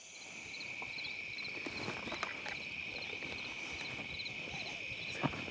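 Footsteps hurrying through grass and brush with clothing and gear rustling, and a sharper knock near the end. Behind them, a steady high insect chorus with short chirps repeating at an even pace.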